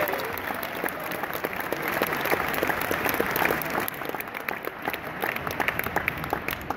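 Large audience applauding in a big hall; the clapping gradually thins out and gets quieter over the last couple of seconds.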